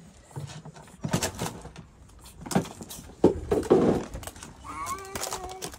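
Knocks and scrapes of a plastic cooler box being opened and handled, the loudest clatter about three to four seconds in. Cats meow near the end.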